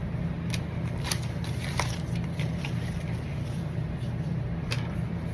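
Steady low hum with a few light clicks and scrapes of trading cards and their plastic holders being handled.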